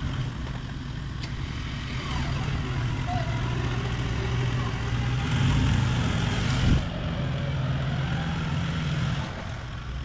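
Toyota 79 Series Land Cruiser engine working steadily at low speed while crawling over rough off-road ground. It pulls a little harder in the middle, then eases off briefly about seven seconds in.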